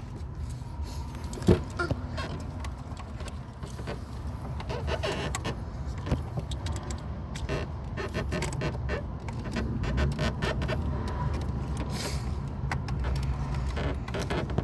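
Scattered light clicks and rattles of hands working plastic parts and wire connectors in a vehicle door, with one sharp click about a second and a half in, over a steady low rumble.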